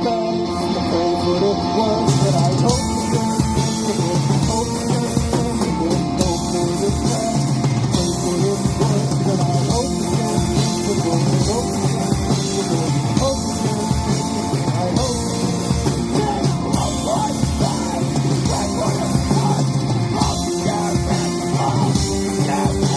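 A rock band playing live, with electric guitars, bass and drums, in a punk rock style.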